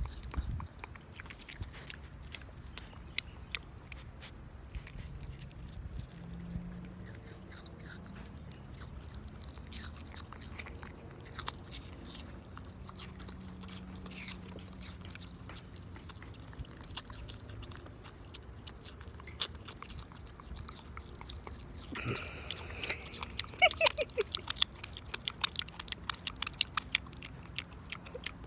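A pig biting and chewing an apple: a long run of crisp crunches and clicks, louder and more frequent near the end.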